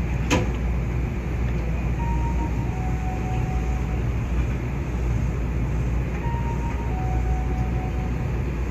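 Nankai 8300 series electric train running along the line, a steady rumble of wheels on rail heard from inside the front of the train. There is a sharp click about a third of a second in, and a few faint short tones come and go.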